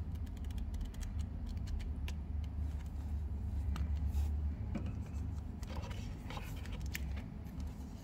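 Pages of a small paperback book flicked rapidly past the thumb, making a quick run of soft ticks. Then a few handling clicks and the crinkle of plastic zip bags being handled, about six seconds in, over a steady low hum.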